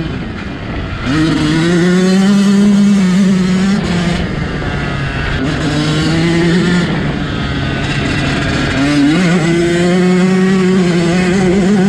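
Yamaha YZ125 two-stroke dirt bike engine, heard from on the bike while riding. It revs up and holds under throttle three times, about a second in, around five and a half seconds and around nine seconds, and eases off in between.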